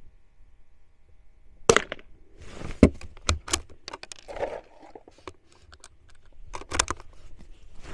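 Bolt of a Keystone Crickett single-shot .22 rifle being worked by hand: a run of sharp metallic clicks and clacks, the loudest about two seconds in, with handling rustle between and a last quick pair of clicks near the end.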